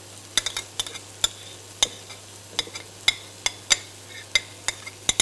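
Metal spoon clinking and scraping against a ceramic dish as grated pecorino is knocked out of it into a glass: about a dozen sharp, irregular clicks over a faint steady hiss.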